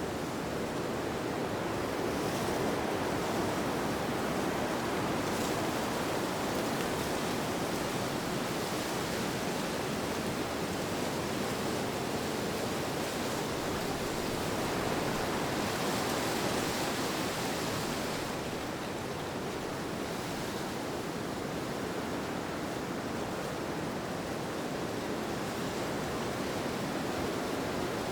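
Steady rushing wind, an even hiss that swells gently and eases off in slow gusts.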